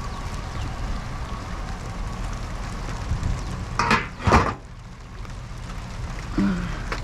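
Rain falling steadily, with two loud, brief handling noises a little past the middle as items in the wet trash pile are moved.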